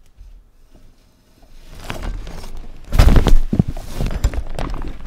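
Quiet at first, then rustling that builds from about a second and a half in, turning into a cluster of loud thumps and knocks about three seconds in as the camera is grabbed and jostled.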